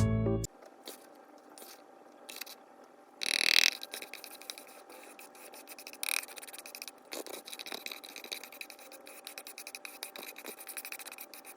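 Powdered starch being scraped and packed into a box: soft gritty scrapes with fine crackling ticks and one louder rustling scrape about three seconds in. A snatch of music cuts off at the very start.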